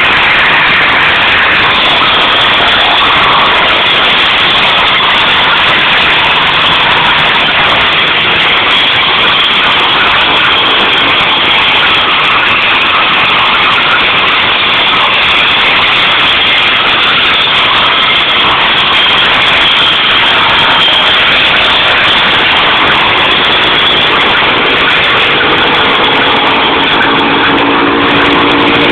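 Tree-branch chipper running loudly and steadily, a dense, continuous mechanical noise; a few steady engine tones come through near the end.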